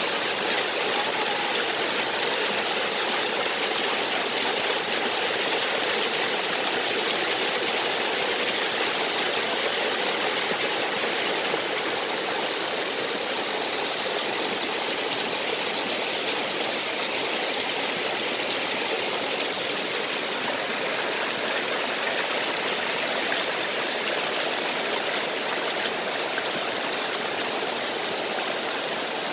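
A small waterfall and stream: water falling and rushing over rocks in a steady, unbroken flow.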